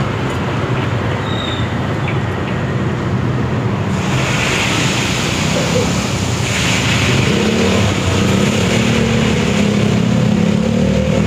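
Hot oil sizzling in a wok as batter is drizzled in to fry kremesan crumbs. The sizzle swells louder about four seconds in and again at about six and a half. Road traffic engines hum underneath, louder near the end.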